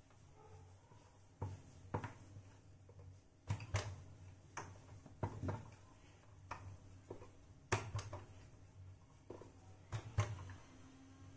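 Rolling pin knocking and rolling on a wooden board as a ball of dough is rolled out into a round for a paratha: irregular light knocks, the loudest about eight and ten seconds in.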